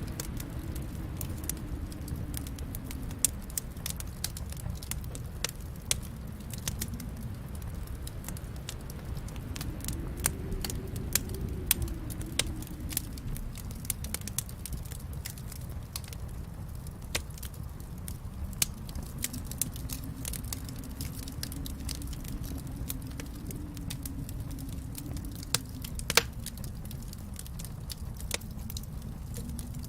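Wood fire burning in a fireplace: a steady low rumble of flames with irregular sharp crackles and pops, one louder pop near the end.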